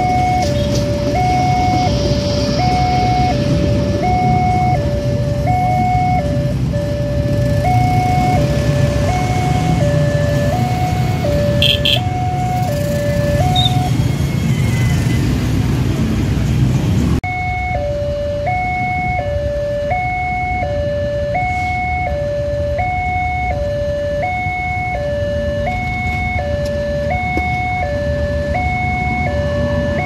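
Electronic railroad level-crossing siren, a standard two-tone alarm alternating high and low notes about every 0.7 s. For the first half it sounds over the low rumble of a passing passenger train. It breaks off about fourteen seconds in and returns a few seconds later over quieter traffic, and a diesel locomotive's low engine note comes in near the end.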